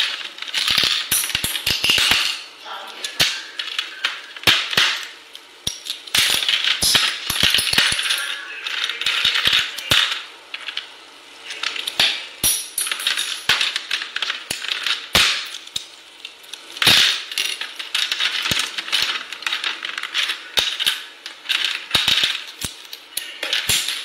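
Plastic keyboard keycaps clicking, snapping and rattling as an African grey parrot pries them off a computer keyboard with its beak: irregular sharp clicks, several a second at times, with short pauses between.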